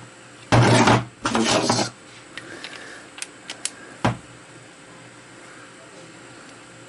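Steel parts of a small 3-jaw lathe chuck scraping against each other in two half-second bursts as the scroll is turned with the chuck key while a jaw is fitted, then a few light clicks and one sharp metal knock about four seconds in.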